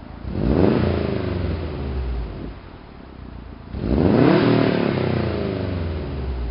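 2011 Subaru STI's turbocharged flat-four, running through a Harman Motive catback exhaust with the stock downpipe, revved twice while standing still. The first rev climbs quickly and dies away over about two seconds. The second comes about four seconds in and is held longer before falling back.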